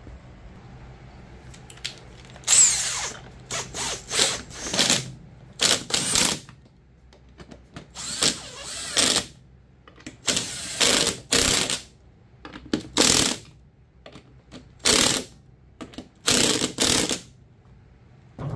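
Cordless impact wrench running the rear wheel's lug nuts onto a riding mower's hub in about fifteen short bursts, each under a second, with pauses between them.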